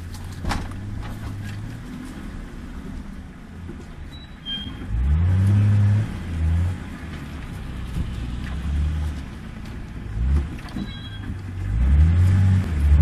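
Nissan Patrol off-road 4x4's engine revving hard in repeated surges as it is driven over rough ground. The note climbs and drops several times, loudest about five seconds in and again near the end, with a sharp knock about half a second in.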